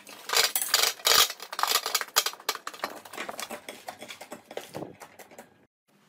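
Crumbly slime being kneaded and squeezed by hand, a dense run of crackling, squelching pops. It cuts off suddenly near the end.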